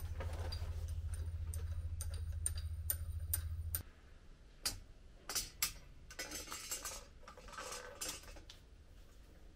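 Light clicks and clinks of metal parts being handled. Under them is a low steady hum that cuts off suddenly about four seconds in, followed by a few louder taps.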